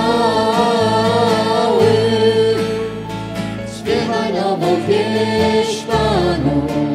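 Christian choral song: voices singing long held notes over a steady low bass accompaniment, with a short break in the singing about four seconds in.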